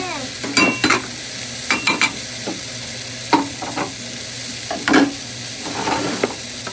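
Chopped liver and tomato sizzling steadily in a frying pan while a wooden spatula stirs them, with irregular knocks and scrapes of the spatula against the pan.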